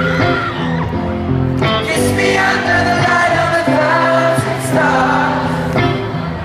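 Live concert music heard from the audience: an electric guitar played through the arena sound system, with singing.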